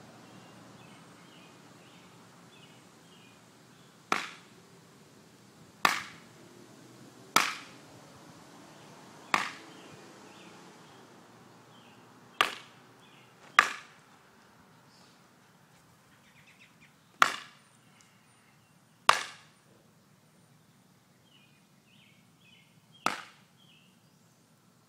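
Hickory bokken (wooden practice sword) whacked against a tree trunk nine times, each a sharp single impact, spaced irregularly one to four seconds apart.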